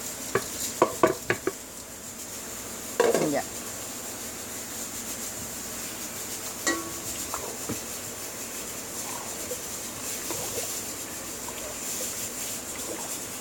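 A spoon stirring rice in liquid in a cooking pot, with several sharp clinks of the spoon against the pot in the first second and a half and a louder knock about three seconds in, then softer scattered stirring.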